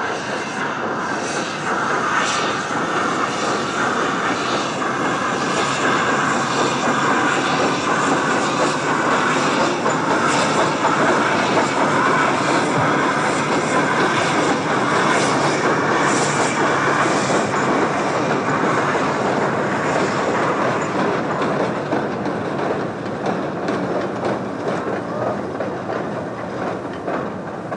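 CC50-class Mallet steam locomotive working a train, a steady loud noise of steam and running gear that builds through the middle and fades over the last few seconds.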